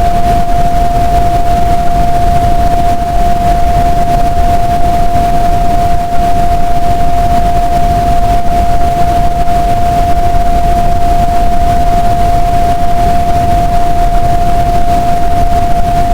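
PDQ car wash dryer blowers running steadily: a loud rush of air with a high whine held on one unchanging pitch.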